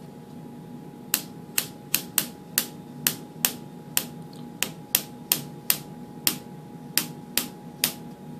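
A 3D-printed plastic trundle wheel clicking as it is rolled along paper: about sixteen sharp clicks at an uneven pace of two or three a second, each one counting off a step of distance.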